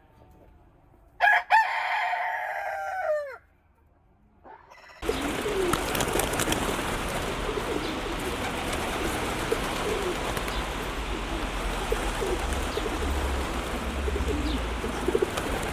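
A rooster crows once, one long call of about two seconds that falls in pitch at its end. From about five seconds in, a steady noisy background with faint bird calls takes over.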